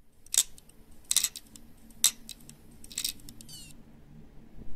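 Four sharp clicks about a second apart over a faint steady low hum.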